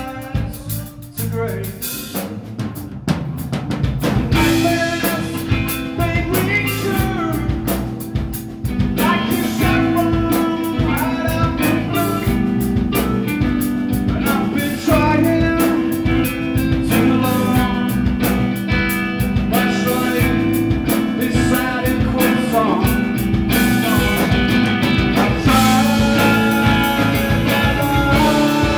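Live post-rock band playing: drum kit, electric guitar and bass guitar, with a man singing. The music builds louder about four seconds in and again about nine seconds in.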